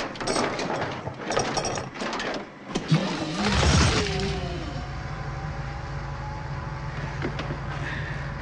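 Clicks and knocks of hands and tools working on a broken-down forklift. About three and a half seconds in there is a loud burst with a falling whine, then a steady low hum from the truck. This is the result of an amateur repair attempt.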